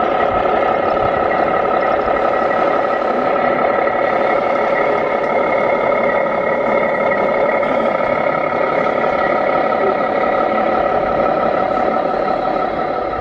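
Radio-controlled model truck's electronic sound module playing a steady diesel engine idle through its small speaker.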